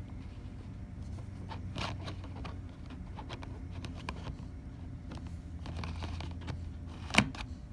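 Handling noise as a lens is fitted to a Nikon Z7 body: light scrapes and small clicks of metal and plastic against the Z mount, with one sharp click about seven seconds in, over a steady low hum.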